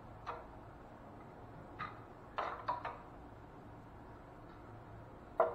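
Hand skip trowel sweeping thinned all-purpose joint compound across a drywall patch to build a skip trowel texture: short scraping strokes, a few in quick succession around the middle and the loudest near the end.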